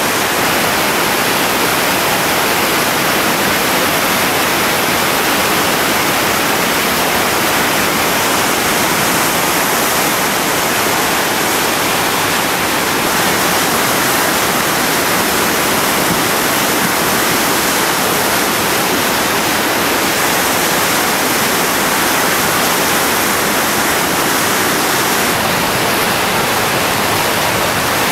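Whitewater rapid on the Chattooga River: a loud, steady rush of churning, foaming water through a river drop.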